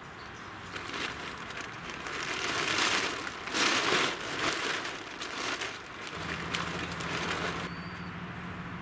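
Plastic tent groundsheet being lifted and handled, a crinkling rustle that is loudest around the middle, then softer sheet rustling as it is spread on the tent floor. A steady low hum comes in about six seconds in.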